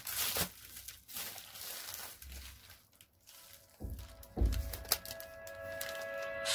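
Plastic mailer bag crinkling and rustling as it is handled and opened, with a couple of low thumps about four seconds in. Background music comes back in during the second half.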